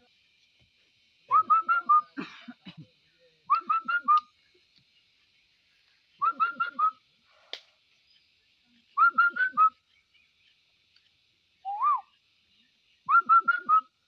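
A person whistling a bird call: a short phrase of four quick rising notes, repeated five times with pauses, and a single longer rising note between the last two phrases.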